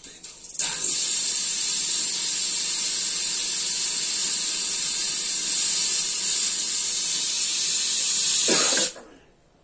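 Steady FM static hiss from a Kenwood KT-313 stereo tuner, played through speakers while its dial is turned between stations. The hiss rises sharply about half a second in and cuts off suddenly near the end as the tuner is switched off.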